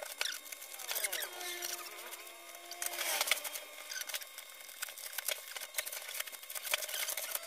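Bubble wrap and plastic packaging crinkling and crackling as it is pulled and torn off a large box by hand.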